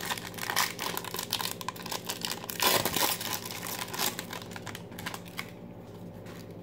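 Foil wrapper of a trading-card pack crinkling and tearing as it is opened, loudest near the middle, then quieter for the last second or so.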